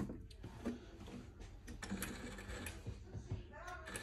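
Vaillant ecoTEC boiler's circulating pump starting up on a heating demand, a low steady hum that begins about two seconds in, with light clicks from the boiler.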